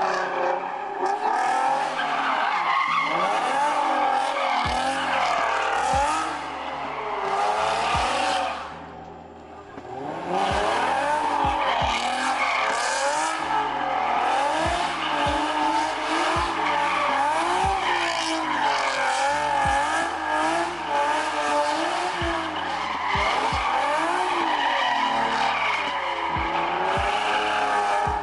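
Cars drifting: tyres squealing, the pitch wavering up and down, over engines revving hard, with a brief lull about nine seconds in.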